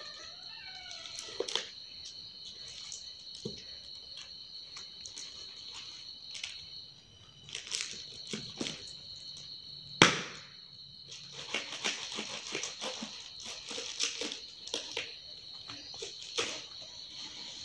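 Kraft paper and a cardboard tube rustling, crinkling and tearing as they are handled and peeled off a potted plant, with one sharp crack about ten seconds in, the loudest sound. A steady high tone sits behind it.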